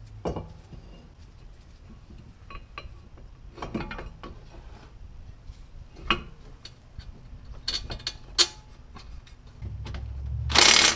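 Scattered metal clinks and knocks as a brake rotor and caliper are fitted back onto a Toyota Corolla's front wheel hub. Near the end comes one loud, short burst of an impact wrench driving a bolt.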